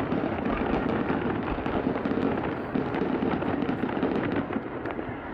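Fireworks going off: a dense run of quick crackling pops, easing a little near the end.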